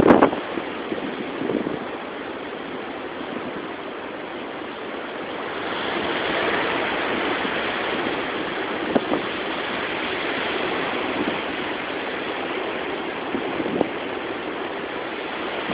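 Hurricane wind and rain making a steady rush that swells louder about six seconds in, with a couple of brief knocks.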